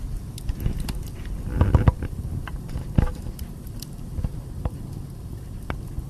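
Wood fire crackling in a fireplace: irregular sharp pops and snaps from the burning logs over a steady low rumble, with a burst of pops about one and a half to two seconds in and a single loud pop at about three seconds.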